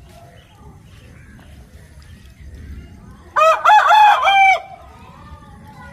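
Rooster crowing once: a single loud crow lasting just over a second, starting about three and a half seconds in.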